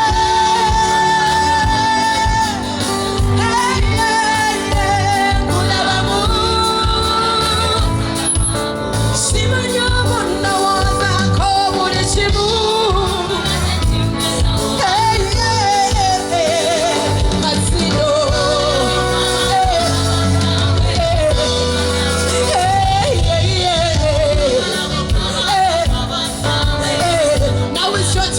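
Loud live concert music: a singer carrying a melody over an amplified band or backing track with a steady bass beat.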